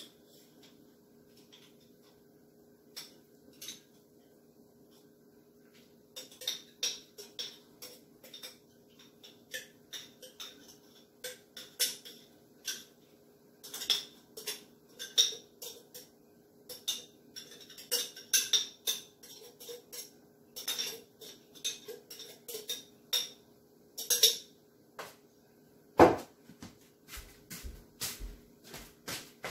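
Kitchen clatter: metal cans, utensils and dishes clinking and knocking in quick irregular taps, sparse at first and busier from about six seconds in. Near the end comes one heavier, deeper thump.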